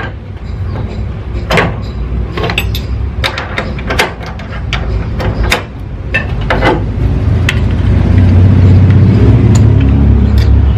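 Metal clicks and clinks of a socket, extension and angle gauge being fitted and set on a cylinder head bolt. From about six seconds in, a loud low rumble builds and holds steady.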